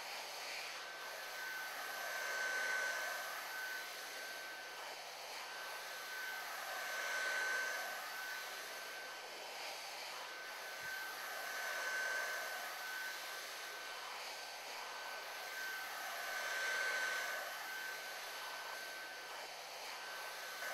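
Hot-air heat gun running steadily with a high whine over its air hiss, the sound swelling and fading about every four and a half seconds as the nozzle is swept around a heat-shrink molded cable boot.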